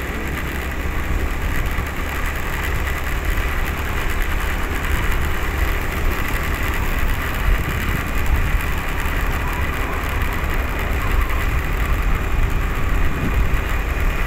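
Steady running noise of a motor vehicle travelling along a road: a continuous low rumble with a hiss above it, getting slightly louder through the stretch.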